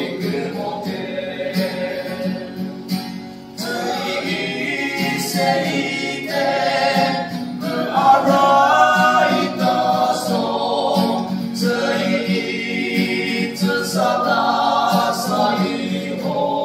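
A group of men singing a gospel hymn together in parts, accompanied by a strummed acoustic guitar.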